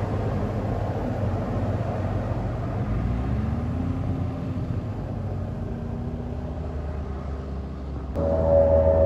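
A large road vehicle's engine and road noise, the engine pitch rising about three seconds in and then holding. Near the end a bus's basuri telolet horn sounds suddenly, several steady tones together, louder than everything before.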